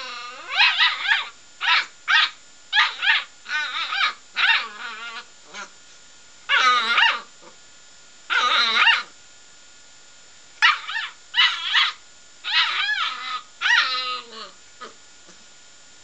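Seven-week-old Border Collie puppy barking and yapping crossly at a radiator, after it burnt his nose: high-pitched yaps in quick bursts with short pauses between them.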